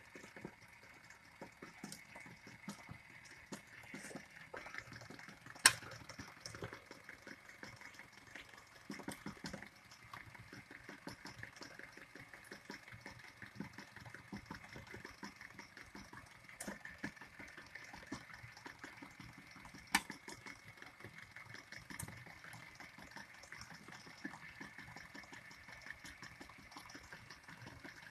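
Electric stand mixer running steadily, its twin beaters churning a thick cream cheese and whipped topping cheesecake filling in a stainless steel bowl. Two sharp clicks stand out, one about six seconds in and one about twenty seconds in.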